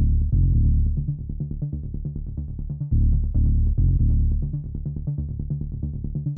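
Electronic background music with a steady pulsing beat and heavy bass.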